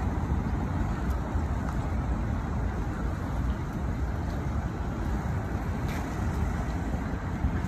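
Steady road traffic on a wide city avenue: cars and other vehicles passing, an even noise strongest in the low range with no single loud event.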